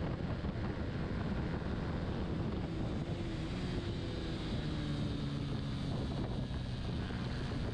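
Honda CBR125R's single-cylinder 125 cc engine running hard on track, its note shifting a little in pitch, under heavy wind rush over the onboard microphone.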